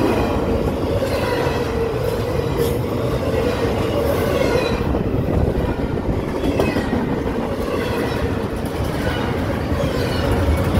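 CSX double-stack intermodal freight train passing at speed on the next track: a steady, loud rumble of wheels on rail.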